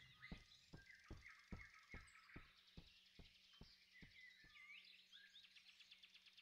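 Very quiet forest ambience of small birds chirping, with a row of soft knocks, about two or three a second, that slow and fade away over the first four seconds or so.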